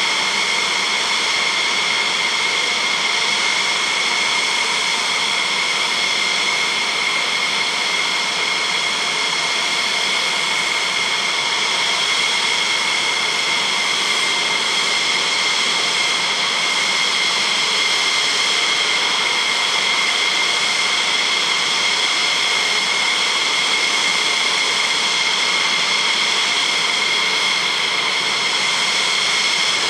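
F-16 Fighting Falcon jet engines idling: a steady high whine over a rushing hiss, holding the same pitch and loudness throughout.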